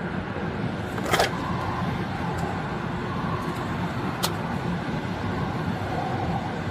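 Steady hum of a running vehicle, with a short knock about a second in and a sharp click about four seconds in.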